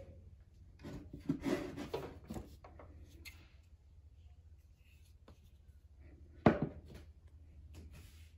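Handling noises as a small portable speaker and a record player are moved about on a wooden desk: rubbing and light knocks, then one sharp knock about six and a half seconds in. A steady low hum underneath.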